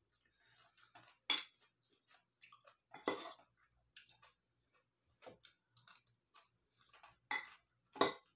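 Metal spoon clinking and scraping against a bowl of salad in a series of separate, irregular clinks a second or more apart, the loudest near the end.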